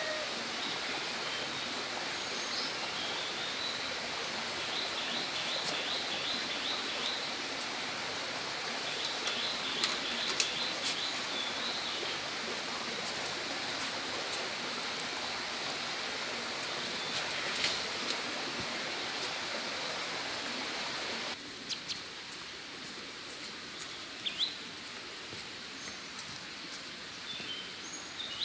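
Steady outdoor background noise with a bird chirping in quick repeated series, twice in the first half, and a few light knocks. About three-quarters of the way through, the background drops abruptly to a quieter level, with a few more chirps and clicks.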